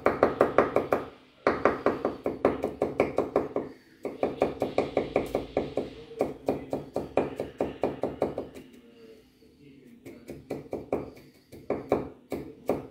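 Kitchen knife rapidly chopping garlic cloves on a wooden cutting board, about seven quick knocks a second in runs broken by short pauses, and softer for a couple of seconds past the middle.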